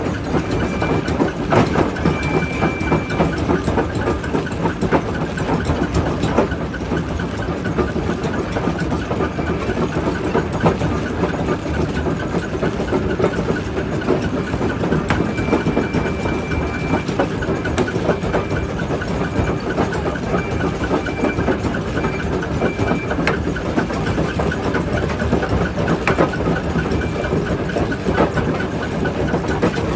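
Primary jaw crusher working rock: a steady heavy rumble with constant irregular knocks and clatter of stone breaking and falling. A thin high tone comes and goes in short stretches, mostly in the second half.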